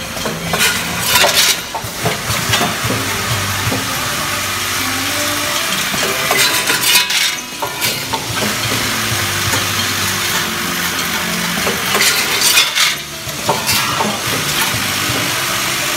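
Automatic vertical screw counting and packing machine running with a steady mechanical hum. A burst of metal clattering comes three times, about every six seconds, as each counted batch of screws drops through the steel hopper.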